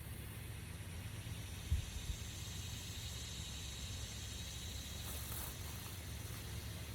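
Outdoor background noise: a low rumble and a steady hiss, with a soft thump about two seconds in and a brief rustle about five seconds in.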